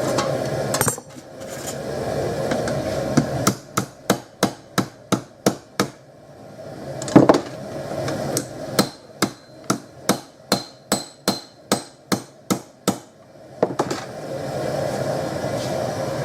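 Hammer blows on metal, about three a second in two runs of roughly ten strikes each, some ringing like an anvil, with one heavier knock between the runs. The steady rush of a gas forge burner is heard at the start, stops about a second in, and returns near the end.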